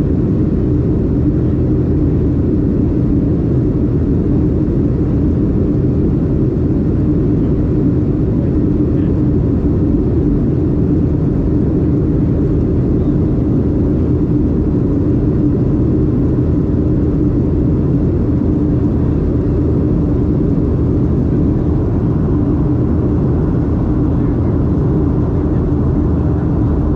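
Steady cabin noise inside a Boeing 737-800, its CFM56-7B engines and the airflow past the fuselage making an even rumble with a steady low hum.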